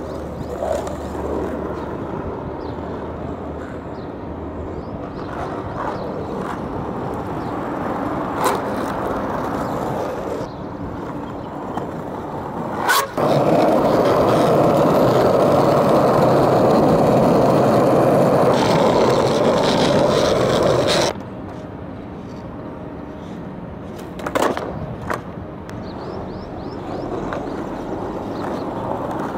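Darkstar skateboard's wheels rolling over rough asphalt, a steady grinding rumble. It is much louder for about eight seconds in the middle, heard close to the wheels, and a few sharp clacks stand out.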